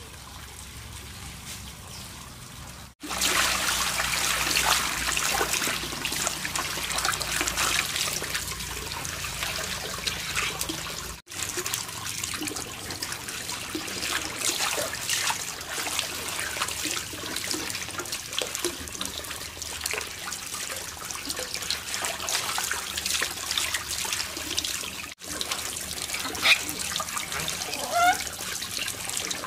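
Water running and splashing, a dense steady noise with a few abrupt cuts; a sharp knock and a short squeak come near the end.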